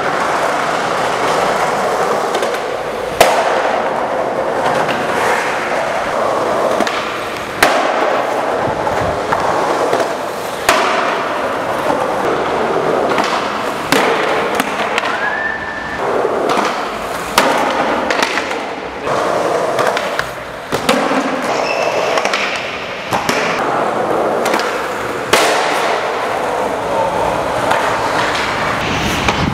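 Skateboard wheels rolling on a hard tiled floor, broken by about a dozen sharp cracks of the board popping and slapping down. The loudest crack comes about three seconds in, and a brief squeak comes near the middle.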